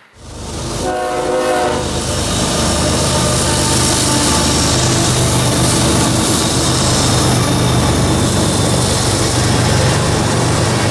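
Diesel-hauled freight train passing, with a steady rumble of wheels on rail under the locomotive's low engine drone. About a second in, the train horn sounds one short blast.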